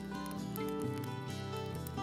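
Background music: held melodic notes stepping in pitch over a low bass line, with scattered short clicks.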